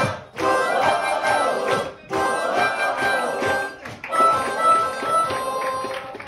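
Loud music at a dance party, with held notes over a beat, broken by abrupt cuts about every two seconds.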